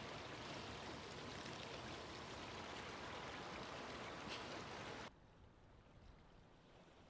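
Steady rushing water noise, an even hiss like a stream or downpour, which cuts off abruptly about five seconds in to a much fainter hiss.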